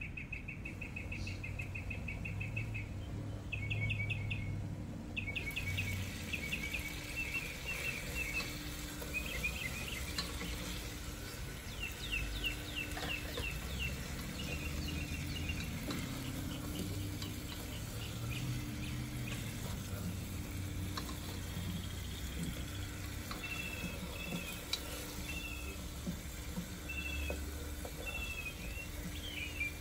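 Whole potatoes frying in a pot, sizzling steadily as a plastic spatula stirs them now and then. Short high chirps and quick trills come again and again throughout.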